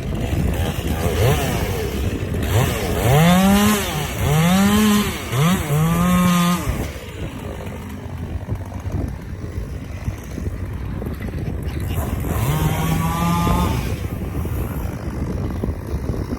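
Two-stroke chainsaw revving: several quick throttle-ups in a row, each rising in pitch, with the last one held. The saw drops back to a lower running speed, then revs up and holds once more near the end.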